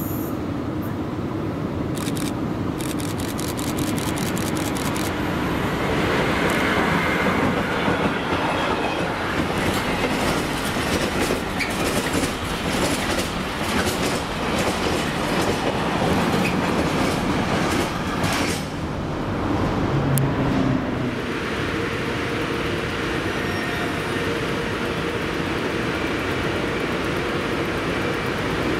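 A train passing on the rails. A rapid run of wheel clicks over rail joints comes in the first few seconds, then a dense steady rolling rumble that eases a little near the end.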